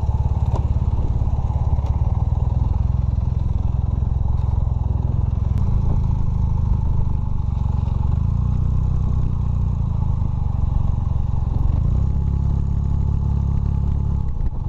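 Honda motorcycle engine running steadily as the bike is ridden, with small changes in the engine note along the way.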